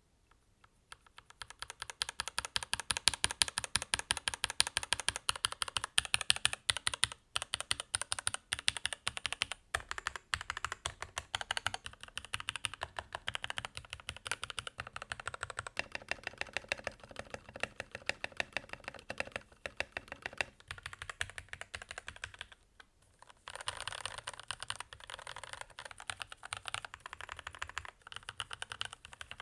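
Fast continuous typing on a Keychron K8 mechanical keyboard with lubed Gateron Red linear switches, a dense stream of key clacks. Typing starts about a second in and pauses briefly about two-thirds of the way through before carrying on.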